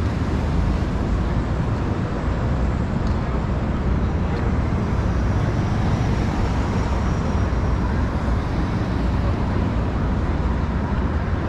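Steady city street traffic noise from passing vehicles.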